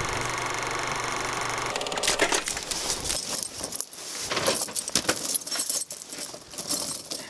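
Steel tire chains clinking and jangling as they are draped over a pickup truck's rear tire and fitted by hand. They follow a steady hum that stops about two seconds in.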